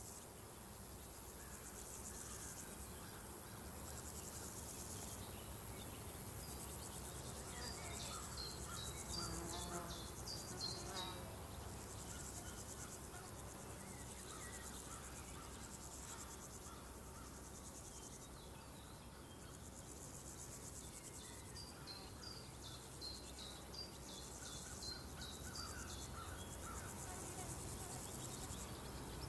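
Crickets and other insects chirring steadily in a field. Twice, a bird sings a quick run of short repeated chirps over them.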